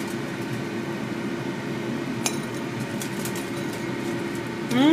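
Cooked shrimp being lifted off an electric grill into a ribbed glass dish, with light clicks and one sharp clink about two seconds in. A steady hiss with a low hum runs underneath.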